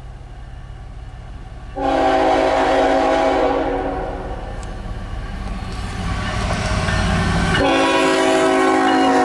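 Norfolk Southern diesel locomotive's air horn sounding a chord of several tones: one long blast starting about two seconds in that fades away, then a second, louder blast near the end as the locomotive comes alongside. A low rumble runs underneath and builds as the train approaches.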